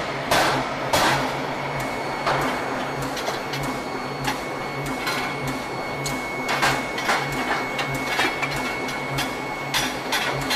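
Forging power hammer striking a red-hot steel bar between its dies: sharp blows, a couple close together near the start and another run from about six seconds in, over the machine's steady rhythmic running pulse and a steady high whine.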